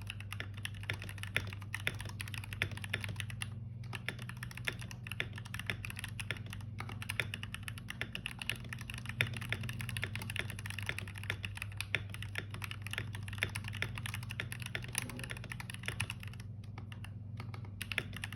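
Fast, continuous typing on a computer keyboard, keys clacking several times a second, with a brief pause a few seconds in and a sparser patch near the end. A steady low hum runs underneath.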